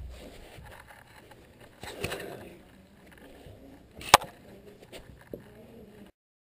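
Knocks and rustling of a ferret nosing and bumping against a GoPro camera, its fur brushing the housing, with one sharp knock about four seconds in. The sound cuts out abruptly near the end.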